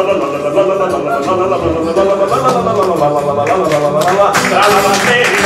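A man singing a melody with a strummed acoustic guitar, the strumming growing stronger near the end.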